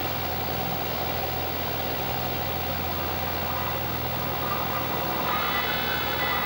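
Cessna's single piston engine running at low power, heard inside the cabin as a steady drone during the landing roll. A higher steady whine joins about five seconds in.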